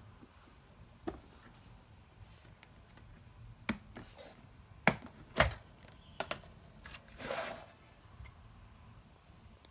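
Sharp hard-plastic clicks and knocks from a clear plastic compartment organizer box being handled, with two loud knocks around five seconds in. A short scraping rustle follows about seven seconds in.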